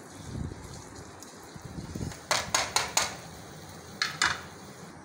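Metal tongs clinking against an aluminium frying pan, four quick clinks about halfway through and two more near the end, over the steady sizzle of shallow frying oil.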